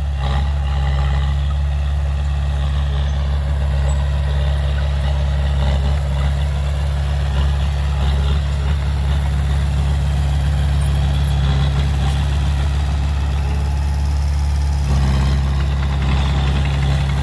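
Heavy diesel engine of earth-moving equipment running steadily at low revs, its note shifting slightly near the end.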